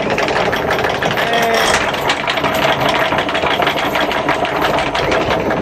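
Electric anchor windlass hauling in the anchor chain: a fast, even mechanical clatter of chain links running over the gypsy.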